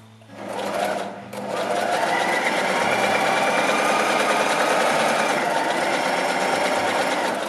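Electric sewing machine, worked by its foot pedal, running at speed and stitching through fabric. It starts just after the beginning, stops for a moment about a second in, then runs steadily.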